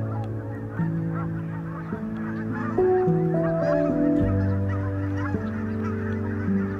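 A large flock of geese honking and calling continuously, many birds at once, over background music of slow held chords that change every second or so.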